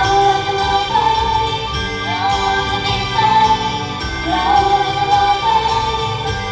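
Female idol group singing a slow pop song together over a backing track, heard live through concert speakers.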